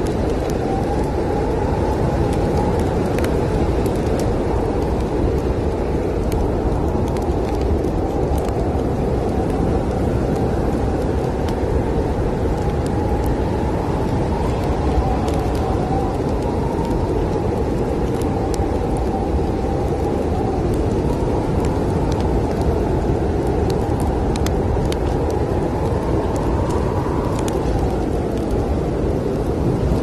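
Snowstorm wind blowing steadily, a low rushing with a howl that wavers in pitch and swells up and back down near the end, under a log fire crackling with small sharp pops.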